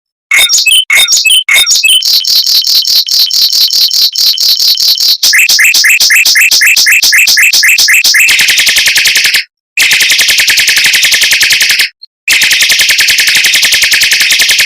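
Mockingbird singing fast rolls: a few separate notes, then a tight run of rapidly repeated high notes. About five seconds in it switches to a run of quick falling notes, and from about eight seconds to a very rapid continuous trill that breaks off briefly twice.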